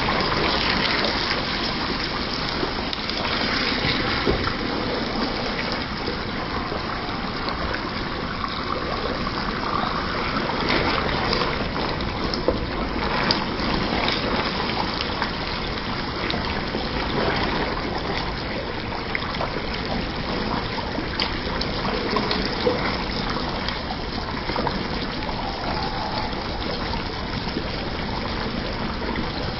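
Beef bhuna curry sizzling and bubbling steadily in the pan while a wooden spatula stirs it, with a few light knocks of the spatula.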